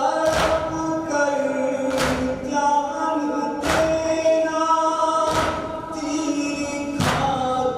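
Group of men chanting a noha, an Urdu mourning lament, in unison with long held notes. Rhythmic chest-beating (matam) slaps land about every second and a half.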